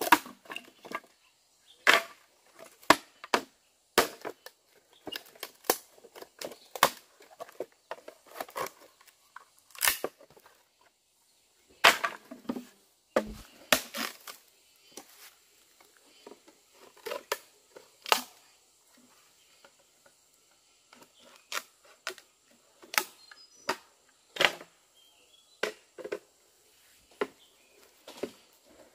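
Sharp knocks and cracks of hard objects striking, at irregular intervals with short quiet gaps between, some clustered several to a second.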